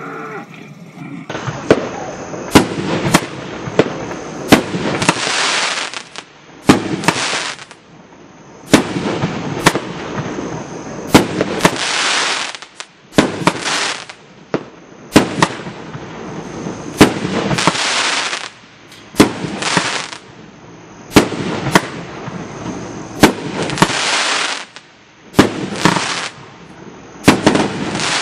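A 500-gram consumer fireworks cake firing its shots one after another: sharp launch and burst reports, each group followed by about a second of dense crackling fizz from the crackling and willow effects, repeating roughly every two seconds.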